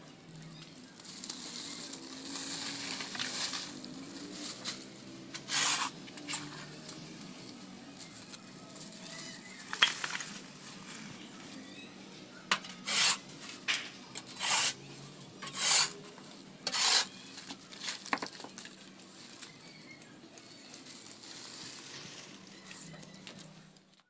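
Thin plastic carrier bag rustling and crinkling as it is held open and filled with dry rubbish, with a string of short, sharp crackles through the middle.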